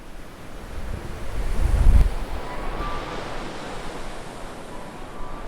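Ocean surf washing on a beach, with wind buffeting the microphone; a low rumble swells to its loudest about two seconds in.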